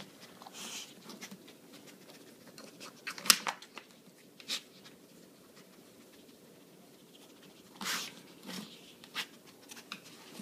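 A dog working a treat puzzle toy, nosing and pawing its sliding pieces to uncover treats: a handful of scattered sharp clicks and knocks over a quiet background.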